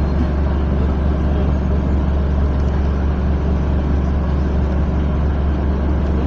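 Cabin noise inside a Mercedes-Benz OF-1722M city bus: a steady, loud, low diesel engine drone mixed with road noise, holding an even pitch with no revving.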